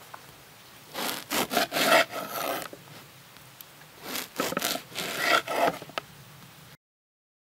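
A knife sawing through the crust of a crusty white loaf on a wooden cutting board, in two bouts of several quick back-and-forth strokes. The sound cuts to dead silence near the end.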